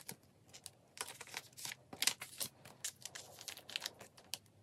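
Plastic-sleeved photocards being slid into a binder's clear plastic 9-pocket page: soft, irregular crinkling and scraping of plastic against plastic in quick short strokes.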